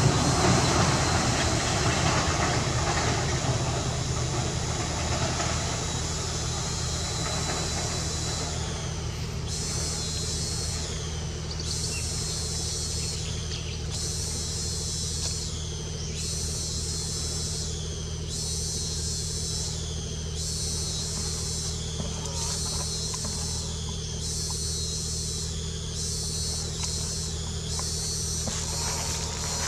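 Insects buzzing in a high-pitched chorus that starts about nine seconds in and swells and drops in a steady rhythm, about once every second and a half, over a steady low hum. A broader rumble fades away over the first several seconds.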